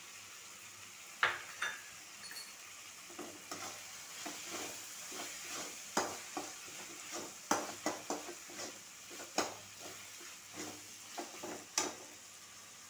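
Spatula stirring and scraping around a metal kadai, with irregular clicks and knocks against the pan, over the steady sizzle of tomato-onion masala with roasted peanuts frying in it.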